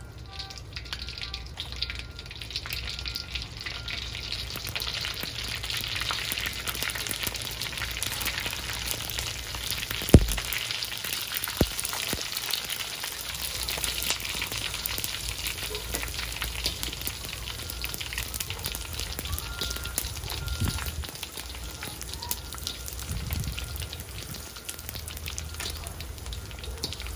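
Dried chicken skins deep-frying in hot oil in a wok: a steady crackling sizzle. A sharp knock stands out about ten seconds in, with a couple of fainter knocks later.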